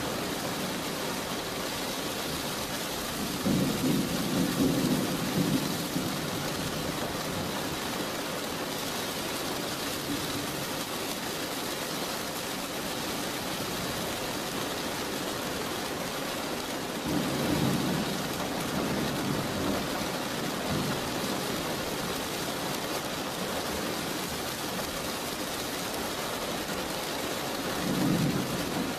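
Steady rain with thunder rumbling three times: a few seconds in, around the middle, and near the end.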